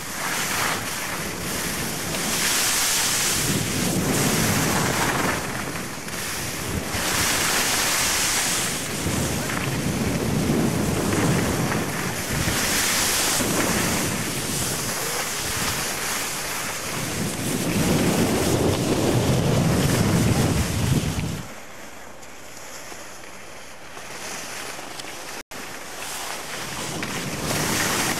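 Wind rushing across the microphone in gusts, swelling and fading every few seconds. It drops sharply about three-quarters through, cuts out for an instant, then builds again.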